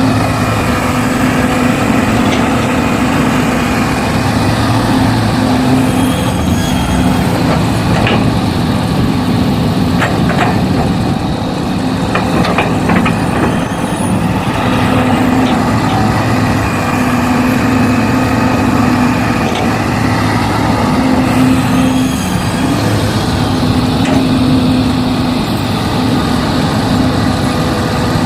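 A motor running steadily, its low hum swelling and easing every few seconds, with a few short knocks scattered through.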